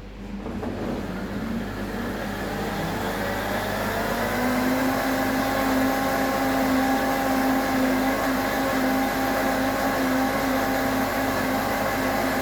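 Countertop blender motor spinning up, its pitch rising over the first few seconds, then running steadily as it blends frozen fruit in orange juice into a smoothie.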